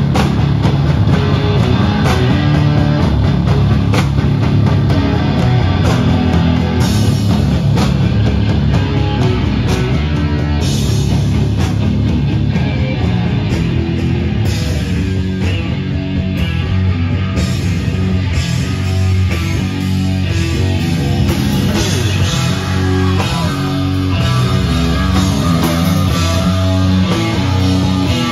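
A heavy metal band playing live through amplifiers: electric guitars and a drum kit, loud and continuous.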